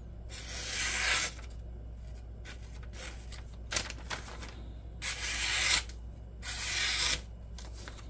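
A D2-steel folding-knife blade slicing through a glossy paper flyer in three rasping cuts, one near the start and two close together in the second half, with a short tick between. It is a paper test of the factory edge, which cuts not super clean but not bad either.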